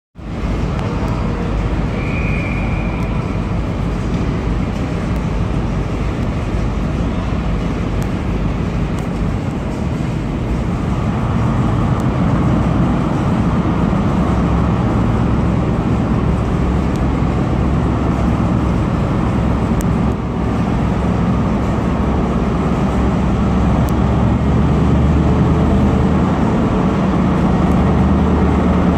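Diesel engines of Class 43 HST power cars running as the train pulls away: a steady low drone that gets louder about eleven seconds in and again toward the end as the train comes nearer. A brief high tone sounds about two seconds in.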